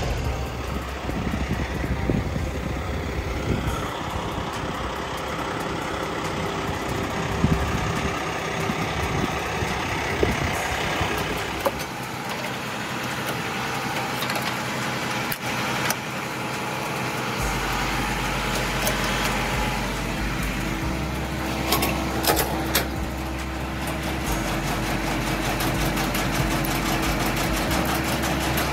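Semi-truck engine running with a steady low drone that shifts in note a couple of times, a steady hum joining about two-thirds of the way through.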